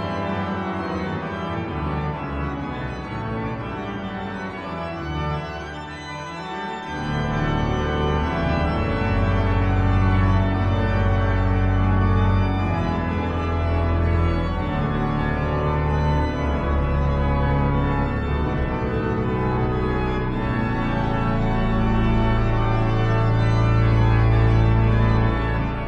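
Organ music played on the manuals, held chords moving slowly; deep pedal bass notes come in about seven seconds in and the music grows louder.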